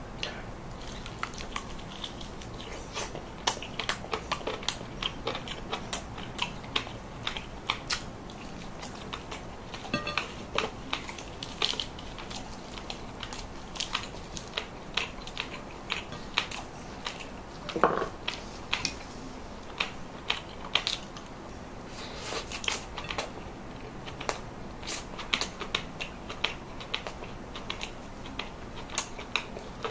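Close-miked eating: crisp crunching bites and chewing, heard as a steady run of small clicks and crackles, with a brief throaty sound about halfway through.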